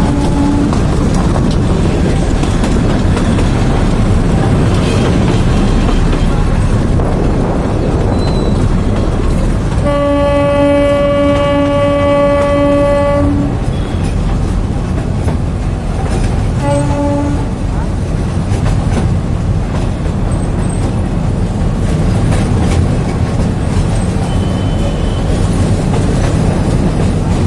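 Gwalior narrow-gauge passenger train running, heard from an open coach doorway: a steady, loud noise of wheels on the track, with the horn sounding one long blast of about three seconds around ten seconds in and a short blast about seventeen seconds in.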